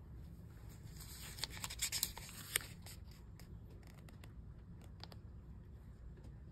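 Pages of a paper journal being turned and handled: soft paper rustling, with a flurry of crinkles about one and a half to two and a half seconds in, then scattered light ticks.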